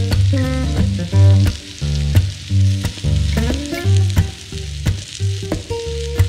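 Onions, green peppers and paneer sizzling and crackling in a frying pan, under background music with a deep pulsing bass and changing notes.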